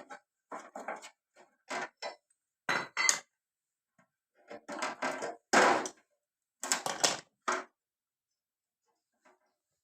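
Metal objects clattering and knocking as they are handled, in a series of irregular short knocks. The loudest comes about five and a half seconds in, and it falls quiet near the end.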